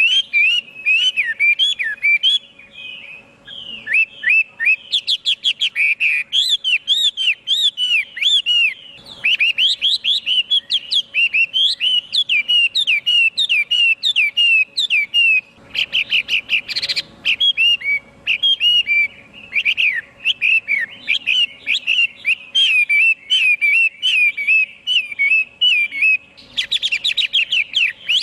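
Chinese hwamei singing a long, fast, unbroken run of loud, varied whistled notes and trills, pausing only briefly about three seconds in.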